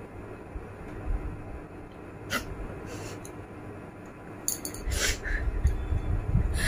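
A woman sniffing and breathing sharply through her nose in a few short, hissy sniffs, more of them in the second half, as she tickles inside her nostril with a safety pin to try to bring on a sneeze.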